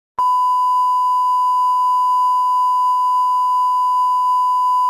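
Test tone of television colour bars: the standard 1 kHz line-up tone, a single loud steady beep held without change. It starts just after the beginning.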